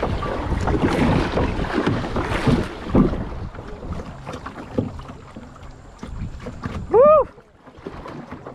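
Kayak paddle splashing and river water rushing as the kayak runs a shallow, rocky, fast-flowing stretch; busiest in the first three seconds, then dying down. About seven seconds in, a short whoop that rises and falls in pitch is the loudest thing.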